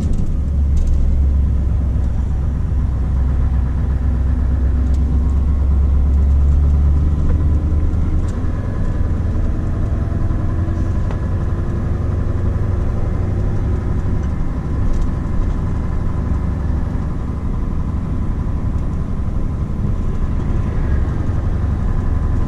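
Scania R520 truck heard from inside the cab: the 16-litre V8 diesel running under way with steady road noise. A deep low drone is strongest for the first several seconds, as the truck pulls out of a turn, then eases off.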